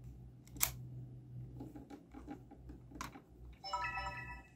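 Canon Vixia HF R800 camcorder being handled: two sharp clicks, about half a second and three seconds in, with lighter ticks between. Near the end a short electronic chime of several tones from the camcorder, over a steady low hum.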